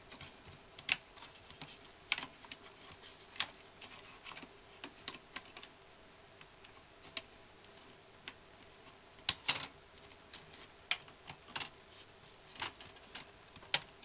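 Irregular small clicks and taps of a laptop hard drive being worked into its bay and pushed into place, its case knocking against the laptop's frame, with a cluster of louder knocks about nine and a half seconds in.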